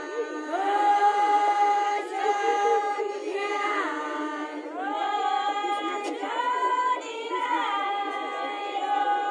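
A group of women singing a traditional Kinnauri folk song together, unaccompanied, in phrases of long held notes that slide up and down in pitch, with short breaks between phrases.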